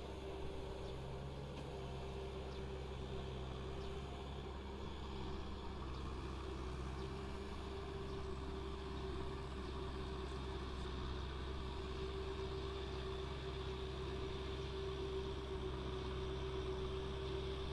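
Kubota M6040 SU tractor's four-cylinder diesel engine running steadily while it drives a rear rotary tiller through the soil, with a constant hum over the engine drone. It grows slightly louder toward the end.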